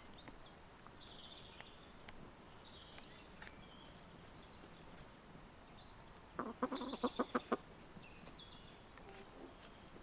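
A chicken clucking, a quick run of about six clucks a little past halfway, with faint high bird chirps scattered through.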